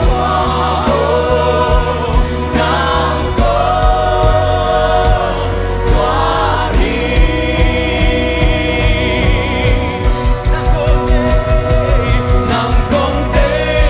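Live contemporary worship band performing a hymn in a Chin language: mixed voices sing together over acoustic guitar, piano, keyboard pad, bass guitar and drums. Near the end the drums play a run of quick beats.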